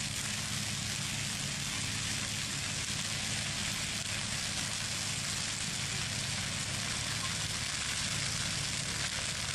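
Brush fire truck's engine running at a steady pitch, with an even hiss over it.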